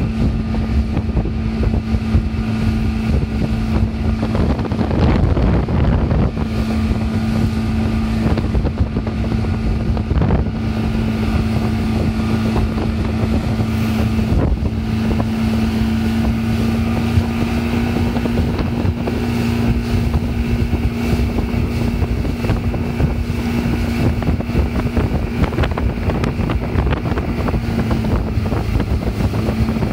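Yamaha 115 hp outboard motor running at a steady high speed while towing a water skier, its engine tone holding an even pitch, with wind on the microphone and the rush of the wake.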